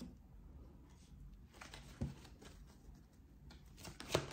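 Tarot cards handled on a table: faint soft taps and slides as a card is laid down and the deck is gathered up, with a few small clicks near the middle and near the end.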